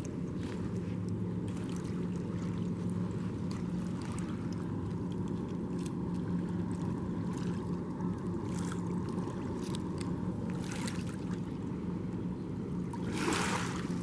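Steady low rumble with a constant low engine hum, faint scattered clicks, and a short rush of hiss about thirteen seconds in.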